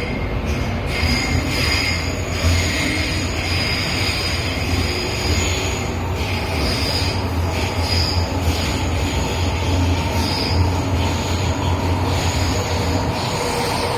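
MTR M-train electric multiple unit running at speed: a steady rumbling roar of wheels on rail, with thin high-pitched squealing tones that come and go over it.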